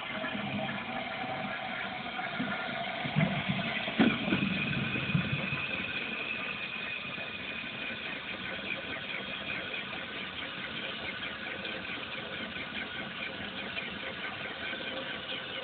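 Toilet running with a steady rushing hiss and a high whine, with a sharp clunk about four seconds in.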